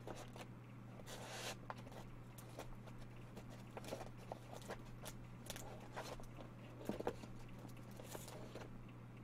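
Faint scattered clicks and a few brief rustles over a steady low electrical hum.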